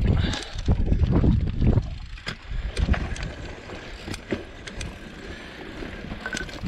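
Mountain bike riding down a dusty, rocky dirt trail: wind buffets the microphone over the crunch of tyres, with sharp rattles and clicks as the bike goes over stones. The rumble is heaviest for the first two seconds, then eases to quieter rolling with scattered clicks.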